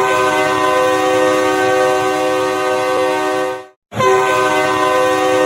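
Hockey goal horn blowing a loud, steady chord of several notes for about three and a half seconds. It cuts off sharply, then sounds again after a brief gap and holds on.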